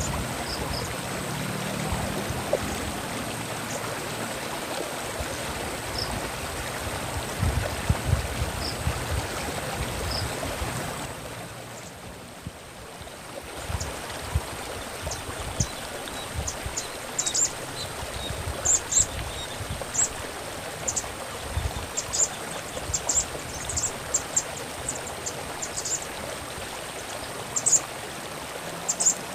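Running stream water flowing steadily, with short high-pitched sunbird call notes, a few at first and then many in quick succession in the second half. The water dips in level briefly a little before the middle.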